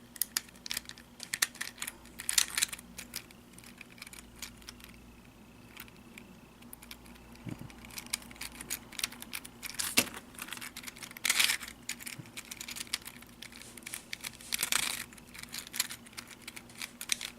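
Clicking and scraping of a 3D-printed plastic 1x3x4 floppy cuboid puzzle as its layers are twisted by hand, in irregular bursts with short pauses. The layers turn with some resistance, catching before they give.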